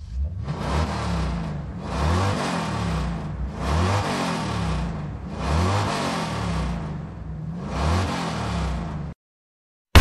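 Car engine revving over and over, its pitch rising with each rev about every two seconds, then cutting off abruptly near the end.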